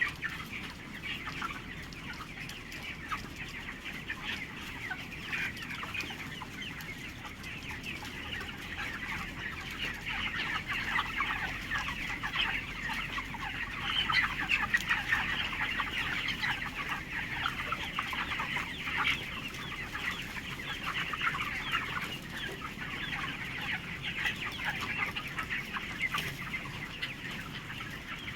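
A flock of 27-day-old chickens in a poultry shed, many birds clucking and cheeping over one another in a continuous chatter that swells somewhat in the middle.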